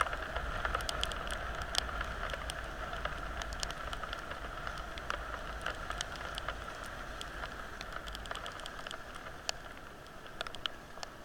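Steady rain falling, with many separate drops striking sharply close to the microphone. A low rumble underneath fades out about eight seconds in.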